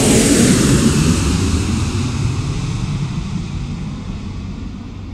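Jet airliner engine noise: a broad rushing rumble, loudest at the start and fading steadily.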